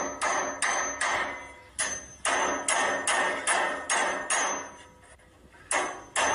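Repeated sharp knocks, about two a second, each followed by a brief ringing decay. They pause for about a second, then two more knocks come near the end.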